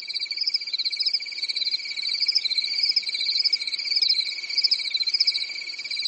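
Night-time chorus of calling crickets and frogs: a steady, fast, even trill with a higher wavering trill above it, running unbroken.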